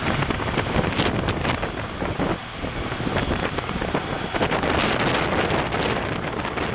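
Wind buffeting the microphone aboard a moving boat, an uneven rushing noise, with the boat's running and the water beneath it.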